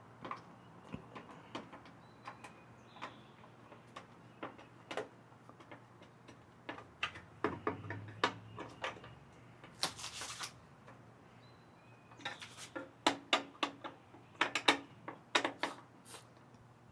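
Irregular sharp clicks and knocks of hand tools and hardware being handled while assembling an elliptical trainer, coming in quick clusters in the second half, with a brief hissing rasp about ten seconds in.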